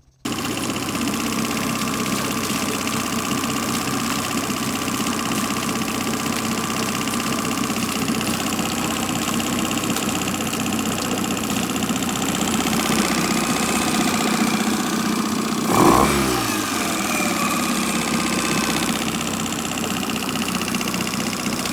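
2008 Mercury 15 hp outboard motor running steadily, now running well with its carburetor jets cleaned of old-gas varnish and junk. About three-quarters of the way through there is one brief louder surge, and the pitch falls back after it.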